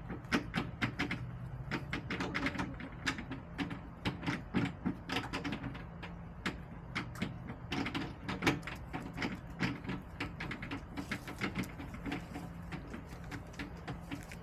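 Chickens pecking at the ground and food close to the camera: a rapid, irregular run of sharp taps and clicks.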